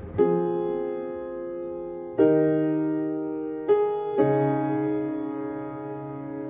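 Background music: four sustained keyboard chords, each struck and left to fade slowly, a new chord every second or two.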